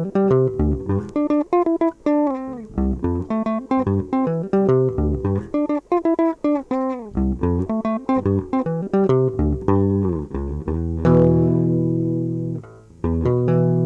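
Guitar playing a sungura-style run of quick plucked single notes with a few bent notes, then a long note ringing out about eleven seconds in, stopped and struck again near the end.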